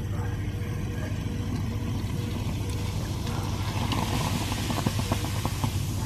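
Vinegar poured from a plastic bottle onto baking soda in a stainless steel sink's garbage disposal drain, with the fizzing hiss of the reaction growing about halfway through and quick crackles of popping bubbles near the end. A steady low hum lies underneath.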